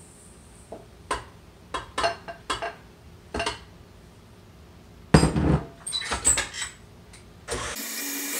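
Clinks and knocks of a cup and utensils against the stainless steel bowl of a stand mixer as sugar goes in, with a louder clatter about five seconds in. Near the end the old Hobart-built KitchenAid stand mixer's motor starts and runs steadily.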